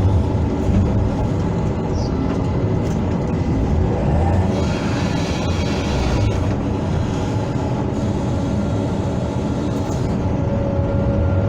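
Hydraulic excavator's diesel engine running steadily under working load. A hissing rush rises over it about four and a half seconds in and lasts about two seconds.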